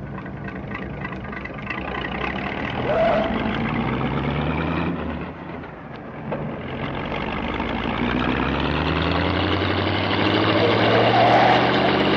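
A motor vehicle engine running and revving up, its pitch climbing over a few seconds, dropping back about five seconds in, then climbing again and getting louder.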